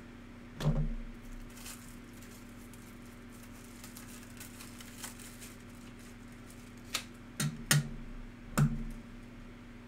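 Trading cards and plastic magnetic card holders being handled on a table: a sharp click with a light thud about a second in, then four more clicks near the end, over a steady electrical hum.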